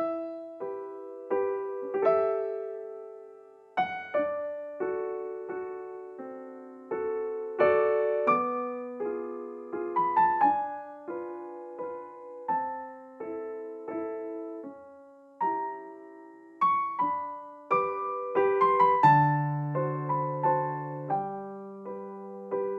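Background piano music: a gentle melody of single struck notes over soft chords, each note ringing and fading.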